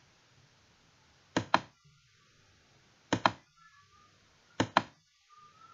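Computer mouse button clicked three times, about every second and a half, each click a quick pair of ticks. Each click places another node along an outline in a drawing program.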